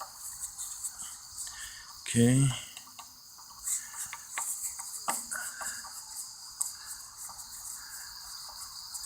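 Insects chirping steadily in a high-pitched, pulsing band, with a few light clicks and knocks from parts being worked loose by hand on a small engine.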